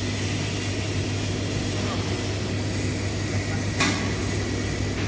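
Steady hum of a vacuum emulsifying mixer running while its vacuum pump draws the tank down, with one sharp click just before four seconds in.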